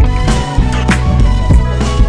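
Background music with a steady beat: a bass line under drum hits about every 0.6 seconds.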